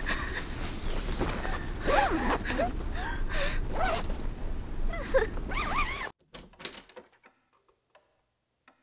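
Nylon tent fabric rustling with a girl's whimpering, crying voice rising and falling over it; it cuts off abruptly about six seconds in, leaving near silence with a few faint ticks.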